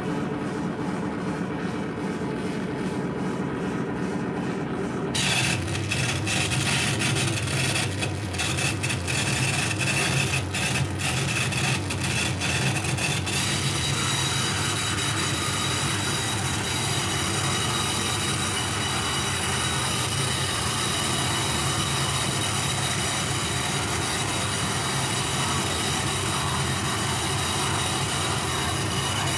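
Harsh noise music played live through PA speakers: a loud, unbroken wall of noise. It turns abruptly brighter about five seconds in, and steady high whistling tones join it about fourteen seconds in.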